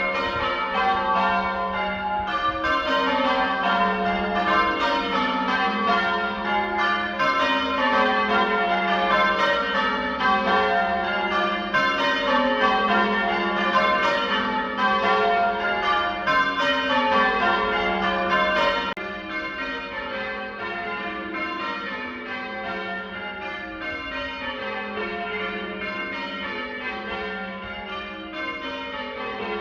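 A ring of church bells being rung, the bells striking one after another in repeated falling sequences in the manner of English change ringing. The ringing drops a little in loudness about two-thirds of the way through.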